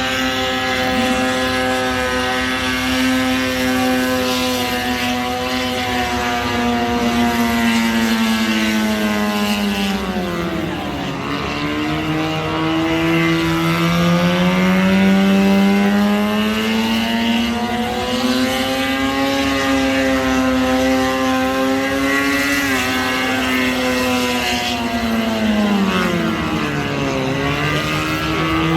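Car engine held at high revs during a burnout, its pitch dropping sharply twice and climbing back up.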